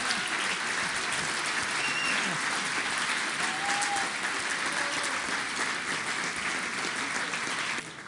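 Audience applauding steadily, stopping suddenly near the end.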